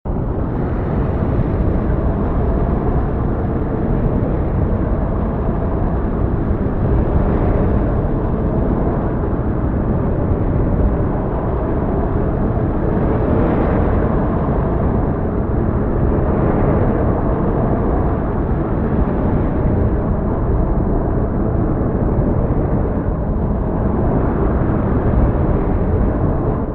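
Heavy storm ambience: a steady, dense roar with a deep rumble underneath, cutting in suddenly out of silence.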